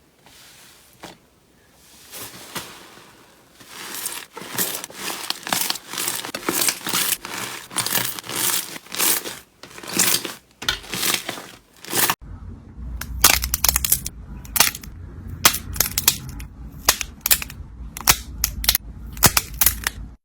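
Slime being squeezed and pressed by hand, giving a dense run of crackling, popping sounds. About twelve seconds in, a low hum starts, and the pops become sharper and more separate.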